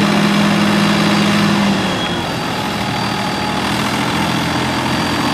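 Fiat tractor's diesel engine running steadily; a little under two seconds in its strongest tone stops and the level drops slightly as the engine eases off, then it runs on more quietly.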